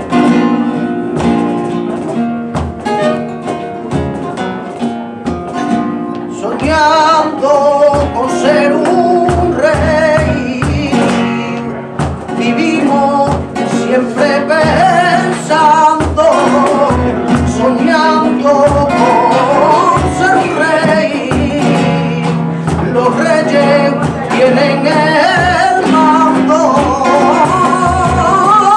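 Flamenco guitar playing fandangos, joined about six seconds in by a man's voice singing flamenco cante in long, wavering, ornamented phrases, over a steady low beat.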